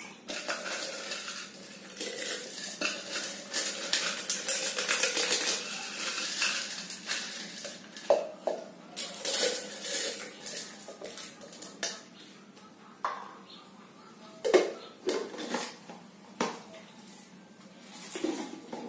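Dry instant noodles crushed by hand inside a plastic blender jar: brittle pieces crackle and rattle against the plastic, densely for the first several seconds, then as scattered knocks. Near the end the jar is set onto the blender base; the blender motor is not running.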